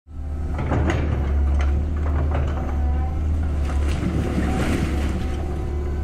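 Backhoe engine running with a steady low rumble while debris clatters and scrapes, with irregular sharp knocks and clanks throughout.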